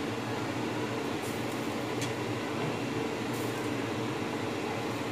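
Steady whirring hum of an electric fan, with a few faint light clicks.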